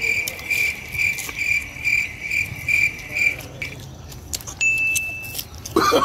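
A high-pitched tone pulsing about two and a half times a second, which stops after about three and a half seconds, followed by a short, slightly higher steady beep near the end.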